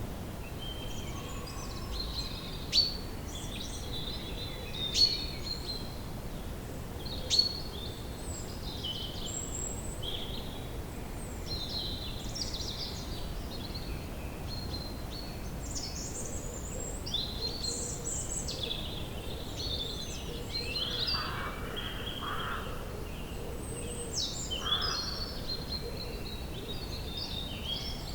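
Woodland ambience: several birds chirping and singing over steady low background noise, with three sharp louder calls about 3, 5 and 7 seconds in.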